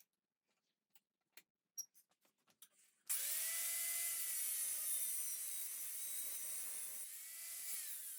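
A few faint clicks and taps, then about three seconds in a high-speed power tool starts abruptly and runs steadily, cutting steel bandsaw blades to shape. Its whine sags slightly under load and dips briefly near the end.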